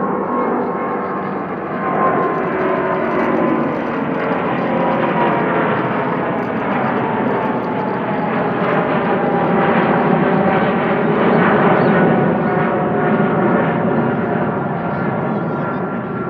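Boeing 777-200ER's twin GE90 turbofans at climb power just after takeoff, passing low overhead: a steady jet roar with several fan tones sliding down in pitch as it goes by. It is loudest a little past the middle.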